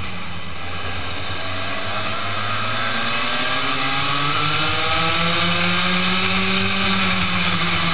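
Daytona Max racing kart engine heard from on board, accelerating out of a corner: its pitch climbs steadily for a few seconds, then holds high.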